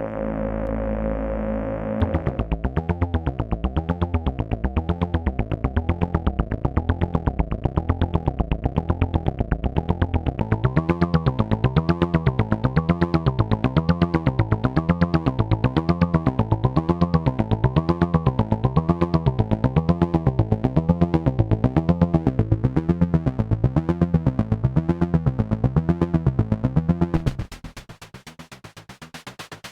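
AnalogFX SER-2020 analog synthesizer being played. A held drone gives way about two seconds in to a fast repeating pulse, its filter sweeping up and down about once a second. The pulse turns brighter about ten seconds in and drops in level near the end.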